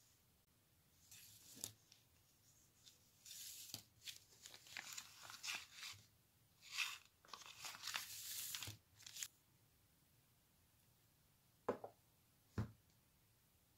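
Foil and plastic skincare sample sachets and a sheet-mask packet crinkling as they are handled, in uneven bursts over several seconds. Near the end, two light knocks of a small plastic tube being set down on a wooden tabletop.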